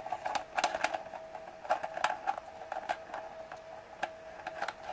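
Irregular light clicks and ticks of a C-mount lens being turned by hand into a CS-to-C adapter ring on a camera's metal lens mount, threads catching as it screws in, over a faint steady tone.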